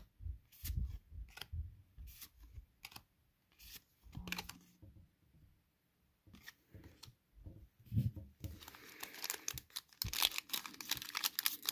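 Trading cards handled in the hand: a few light flicks and taps with quiet gaps. Then from about eight seconds in comes a dense crinkling and tearing as a foil Pokémon booster pack is worked open.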